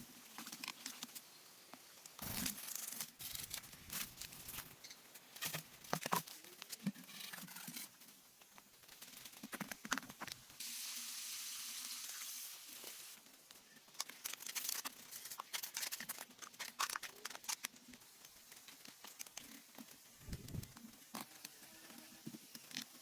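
Wood being worked and handled by hand: scattered knocks, clicks and scraping, with a steady rasping hiss lasting about two seconds near the middle.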